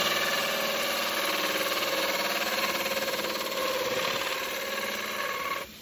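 Power drill spinning a hole saw as it bores through a PVC soffit, running steadily, then stopping near the end.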